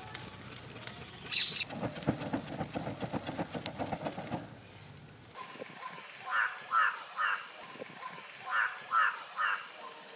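A woven hand fan swished quickly over a charcoal fire in a clay pot for the first four seconds or so. After it stops, a bird calls in two sets of three short calls.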